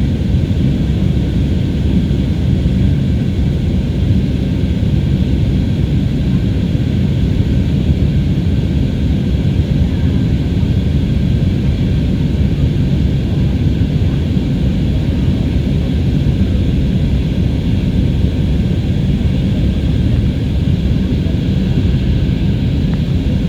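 Steady, loud engine and airflow noise inside the cabin of an Airbus A320neo, heavy in the low end and unchanging throughout.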